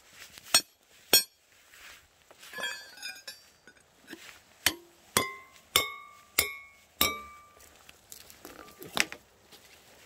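A steel rebar stake being struck, with sharp metallic clinks that each ring briefly: two strikes about a second in, a light rattle, then five evenly spaced strikes a little over half a second apart, and one more near the end.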